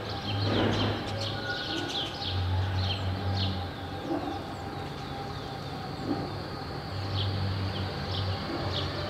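Birds chirping, short high falling chirps several times a second, over a steady street background. A low hum comes and goes underneath, and there is a brief louder rush about half a second in.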